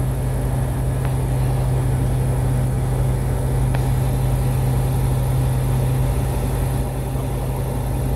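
Piston engine and propeller of a single-engine light aircraft droning steadily in flight, heard from inside the cockpit.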